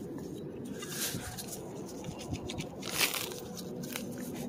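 Metal hand digger stabbing and scraping into frozen, rock-hard soil and turf: scattered crunching scrapes, the loudest about three seconds in.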